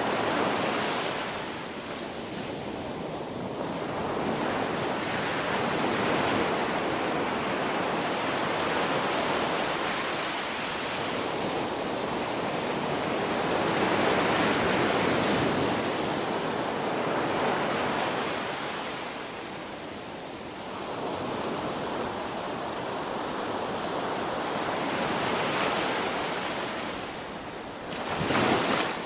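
Sea waves breaking on a beach: continuous surf that swells and ebbs in slow surges every several seconds, with one sharper, louder crash near the end.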